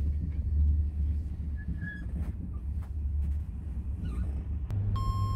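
Steady low rumble inside a train carriage, with a few faint clicks. Near the end, a few sustained music tones come in.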